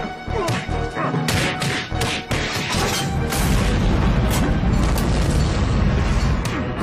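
Dramatic cartoon fight score with several sharp hits and crashes of the brawl. From about three seconds in, a deep, continuous rocket-launch rumble from a space shuttle lifting off builds under the music.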